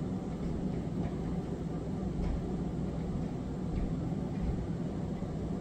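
Steady low rumbling background noise, with a few faint soft ticks.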